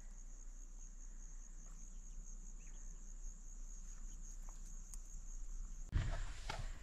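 Faint, steady, high-pitched insect trill, finely pulsing without a break, with a brief bump near the end.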